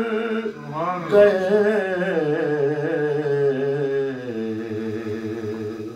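A man's voice singing a naat unaccompanied, drawing out long held notes with a wavering pitch and a melodic run about a second in. The voice stops abruptly at the very end.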